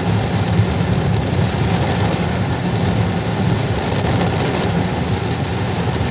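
Heard from inside a car's cabin while driving slowly through heavy rain: a steady mix of rain on the roof and windshield with engine and tyre noise on the wet road.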